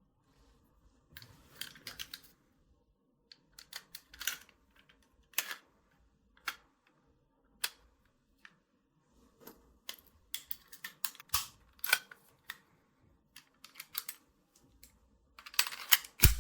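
Parts of an M1911-style toy gel blaster clicking, snapping and rattling as it is assembled by hand. Scattered sharp clicks and short rattles are followed near the end by a quick run of louder clicks.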